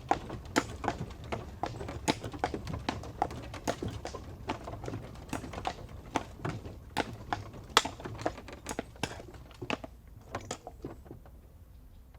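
Horse-drawn carriage: hooves clip-clopping irregularly on a hard surface over a low rumble of the wheels, growing fainter and sparser toward the end.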